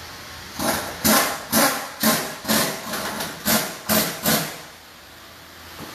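A pneumatic air tool in a car workshop, fired in about nine short hissing bursts, roughly two a second, stopping about a second and a half before the end.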